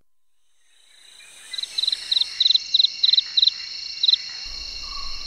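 Night insect chorus fading in over the first second: a steady high cricket trill, with short chirps about four times a second that pause after a couple of seconds and then give one more. A low hum comes in near the end.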